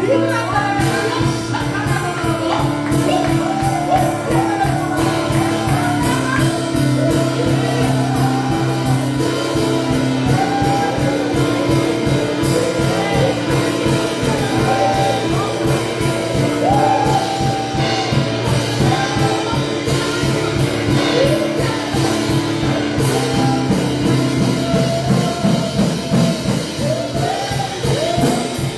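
Gospel worship music: held keyboard chords under a steady beat, with voices singing wavering, drawn-out lines over them.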